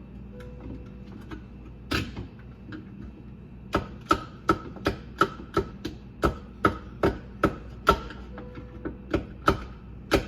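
Sharp knocks from work on a garbage disposal jammed by aquarium rocks: one about two seconds in, then a quick run of about two to three a second for several seconds, and a few more near the end.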